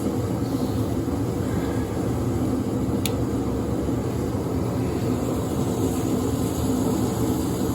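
A steady mechanical hum, even throughout, with a single short high tick about three seconds in.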